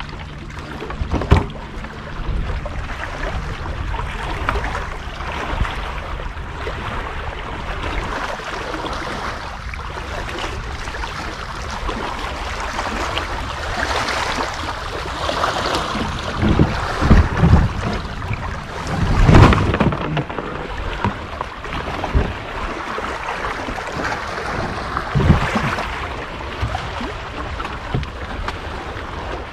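Shore water sloshing and wind buffeting the microphone while a fishing kayak is wrestled out of the water. A few loud knocks and thumps come through, the biggest cluster about two-thirds of the way in.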